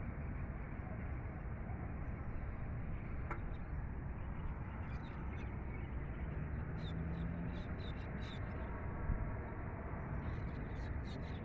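Steady outdoor background noise, heaviest in the low range, with short runs of faint high bird chirps a little after the middle and again near the end.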